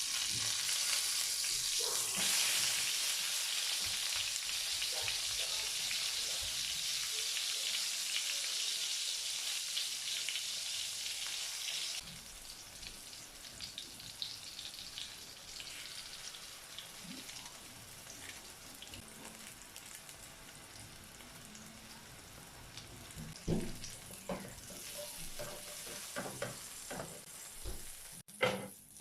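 Food sizzling as it fries in a pan. The sizzle is loud at first, drops abruptly to a quieter sizzle about twelve seconds in, and a few short knocks come near the end.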